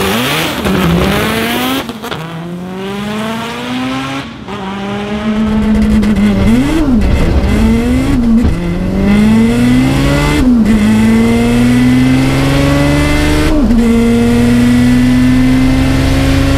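Turbocharged Honda B-series VTEC four-cylinder accelerating hard on a drag pass. The revs climb steadily, then drop sharply with a brief cut at each of several gear changes.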